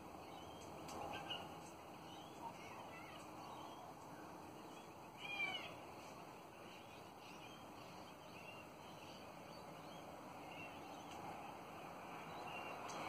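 Twenty-eight parrots (Australian ringnecks) giving soft, scattered chattering calls, with one louder call about five seconds in.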